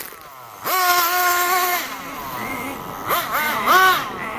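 Small nitro RC car engine revving in bursts: a sharp rise held for just over a second, then two quick revs near the end.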